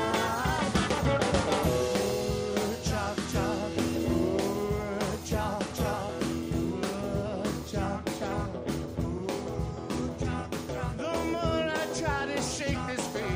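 A song playing: a singer over a full band, with a steady drum beat.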